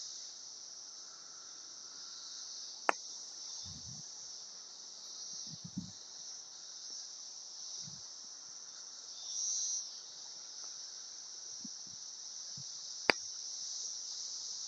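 Chorus of cicadas, a steady high-pitched buzz with one nearer cicada swelling louder for a moment past the middle. Two sharp clicks, one early and one near the end, stand out above it.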